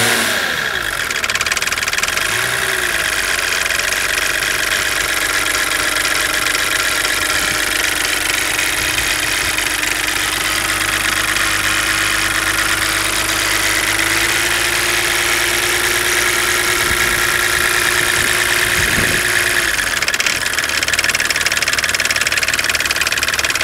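M51 2.5-litre turbo-diesel straight-six idling steadily at a low idle, with clattering from the top of the engine. The owner suspects the tensioner pulley, the timing chain or a tired injection pump.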